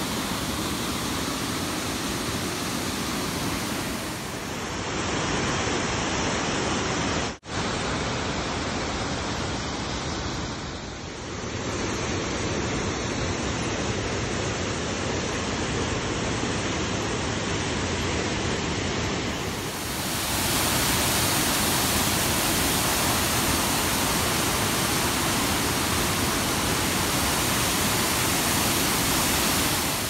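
Rushing water of the Kanthanpara waterfall, a steady noise that changes in tone at cuts about 4½ and 19 seconds in. There is a very short dropout about 7½ seconds in.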